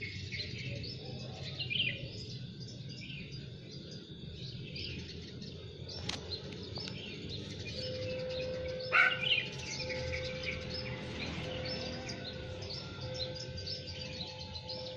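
Many wild birds chirping in a morning chorus, with many short overlapping calls and one louder call about nine seconds in. From about eight seconds a steady low tone sounds behind them, breaking off and returning every second or so.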